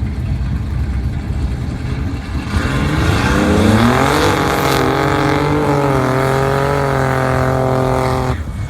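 Drag-racing car engine running low, then revving up over about a second and a half and held at high revs for around four seconds before cutting off suddenly.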